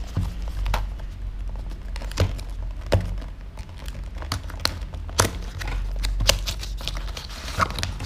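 Cardboard product box being handled and opened: rustling of the flaps and packaging, with scattered sharp taps and clicks.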